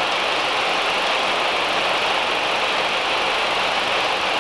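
Citroën C3 1.5 engine idling at about 720 rpm with its electric radiator cooling fan running on first speed, a steady rushing noise. The fan is cooling the engine down from its 105 °C working temperature, the normal cooling strategy.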